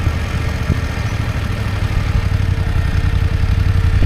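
BMW F850GS motorcycle's parallel-twin engine running steadily as the bike rolls along at low speed.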